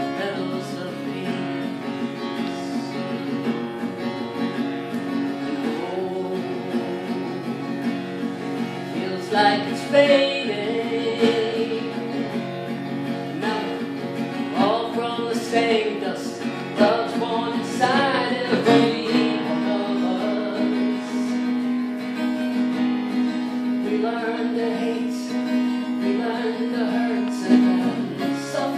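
Live acoustic guitar strummed and picked, with a voice singing over parts of it.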